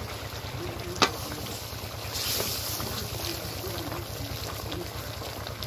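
Metal ladle stirring a boiling curry in a large metal kadhai, with one sharp clink of the ladle against the pan about a second in, over a steady low rumble.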